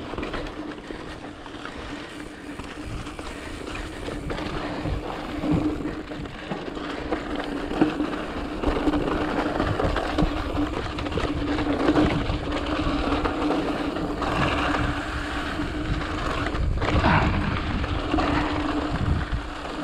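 Mountain bike rolling over a dirt and gravel trail: knobby tyres crunching on dirt and loose stones, the bike rattling and knocking over bumps, with wind noise on the microphone and a steady hum underneath.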